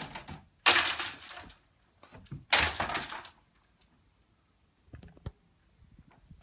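Golf discs striking a homemade basket's hanging 1/2-inch PVC pipe 'chains', twice, each a sharp hit followed by the plastic tubes clattering for about half a second. A few faint knocks near the end.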